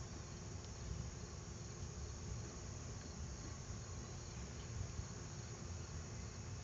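Crickets chirping steadily, with a low rumble underneath.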